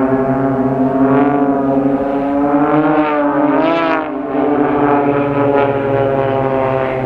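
Piston engines and propellers of the Blades' Extra 300 aerobatic aircraft droning overhead as a formation, a steady many-toned hum. The pitch rises and falls back about three to four seconds in as the aircraft manoeuvre.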